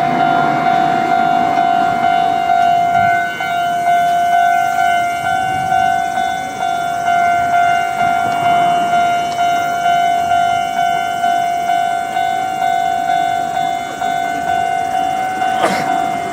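Japanese railway level-crossing warning bell ringing continuously: the same electronic 'kan-kan' tone repeating about twice a second, each stroke fading before the next.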